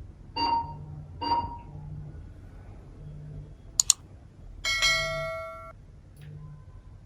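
Two short dings about a second apart, a sharp double click, then a longer ringing chime that fades away.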